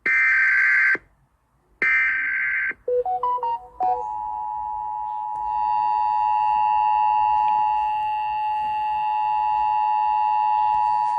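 Emergency Alert System header data bursts, two one-second squawks, then a short run of rising beeps, then the EAS two-tone attention signal sounding steadily. This is the start of an emergency alert, here heralding a tornado warning.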